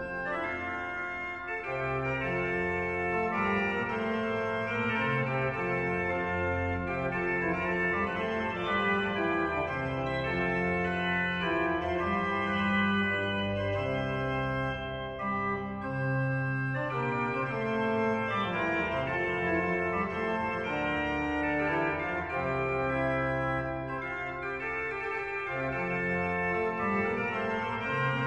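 The 1774 J. E. Isnard pipe organ playing a French Baroque duo sur les tierces in G major: a treble line and a bass line, each on a tierce registration, moving against each other in sustained notes.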